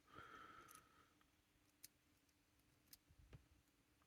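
Near silence, broken by a few faint, isolated clicks of small metal lock parts being handled during disassembly of a disc-detainer padlock.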